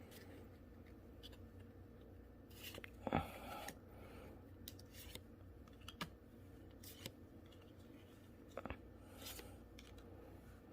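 A foil trading-card booster pack being opened, with one louder crinkle about three seconds in, then faint clicks and rustles of the cards being handled.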